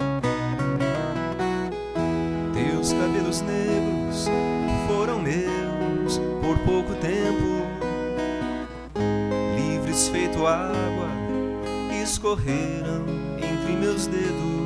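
Viola caipira, the Brazilian ten-string folk guitar, playing an instrumental passage: plucked melody notes over strummed chords.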